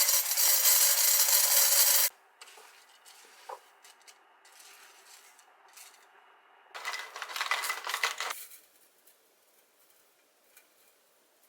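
Coffee being prepared by hand: a loud, steady rasping noise for the first two seconds, then light clicks and rubbing, and a second, shorter rasping burst about seven seconds in.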